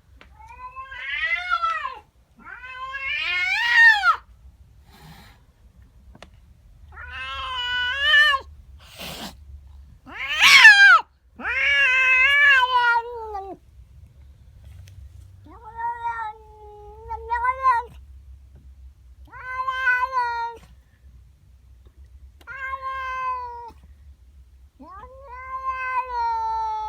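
Domestic cat yowling at an intruding cat: a territorial caterwaul. About ten long, drawn-out calls come one after another with short pauses, their pitch bending up and down, some held for a second or two.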